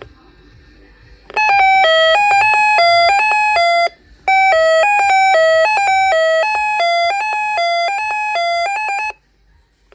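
Loud electronic chime melody of quick stepped notes. It starts about a second and a half in, breaks off for a moment around four seconds, then plays on until about nine seconds.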